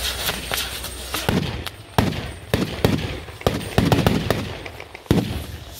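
Firecrackers going off: about eight sharp bangs at irregular intervals, starting about a second in, each trailing off in a short low rumble.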